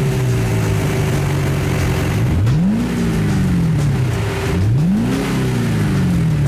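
Chevrolet Camaro engine heard through its aftermarket exhaust, idling and revved twice: each throttle blip rises quickly in pitch and then falls slowly back to idle.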